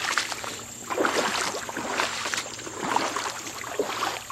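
Footsteps wading along a shallow creek bed: irregular splashing, crunching steps, a few each second.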